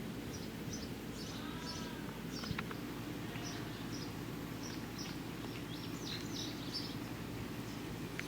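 Small birds chirping in short, high, repeated calls over a steady low background rumble.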